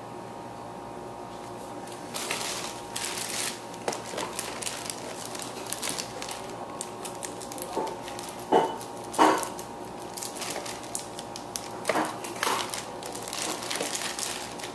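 Plastic packaging crinkling and small plastic parts clicking as they are handled, with two louder clacks a little past halfway.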